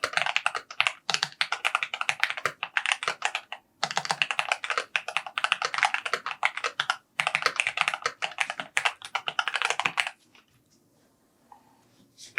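Mechanical keyboard being typed on in fast, continuous bursts of keystrokes, with two brief pauses. The typing stops about ten seconds in.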